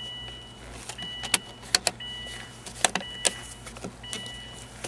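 Plastic shift-selector indicator housing being pressed down and snapping onto its locking tabs: several sharp plastic clicks over a couple of seconds. Behind them, an electronic tone beeps on and off about once a second.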